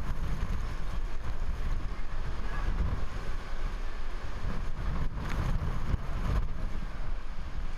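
Typhoon wind buffeting the microphone with driving rain, a steady rush of noise with heavy low rumbling gusts.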